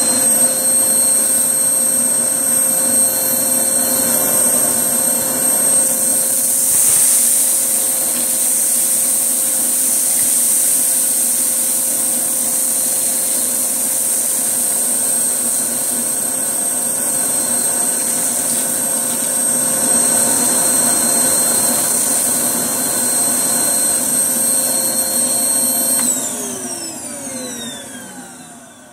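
Hoover Blaze canister vacuum cleaner running with a steady high whine. Near the end it is switched off and the whine falls in pitch as the motor spins down.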